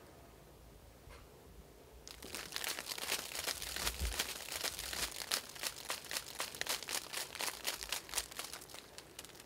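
A man's urine stream hitting dry leaf litter, a dense crackling that starts about two seconds in and fades near the end.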